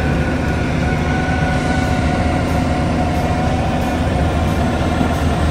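Bobcat skid-steer engine running steadily under load while its hydraulic Coneteks 2.13M milling attachment grinds deep into the soil, with a steady high whine over the dense low drone.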